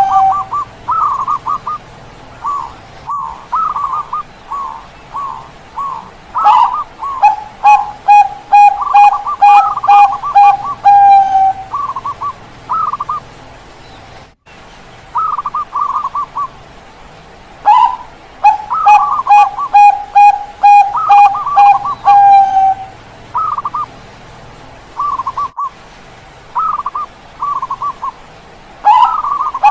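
Perkutut bangkok (zebra doves) cooing in their rhythmic song. Clusters of short, higher coos alternate with strings of quick, evenly spaced lower coos that end in a longer drawn-out note, the long string coming about every 11 seconds.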